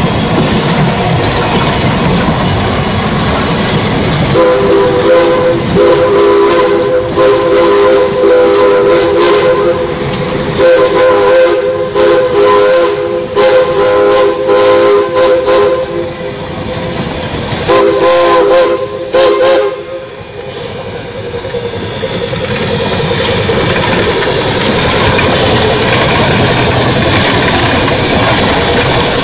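Geared Shay steam locomotive's chime whistle sounding several notes at once, in long blasts about four seconds in and again near the twenty-second mark. Then the locomotive passes close, with a steady rush of steam and running gear and a thin high squeal.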